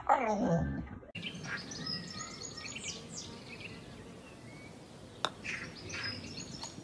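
A dog's short grumbling vocalization for about the first second, then faint outdoor background with birds chirping. A single sharp click comes about five seconds in.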